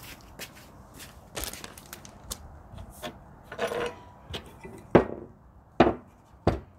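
A series of sharp knocks and clatters of hard objects, getting louder toward the end, with three loud knocks in the last two seconds, the first of them the loudest.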